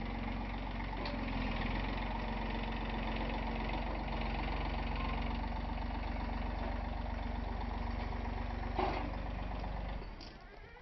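John Deere compact tractor's diesel engine running steadily, with one clunk near the end. The engine sound falls away sharply about ten seconds in.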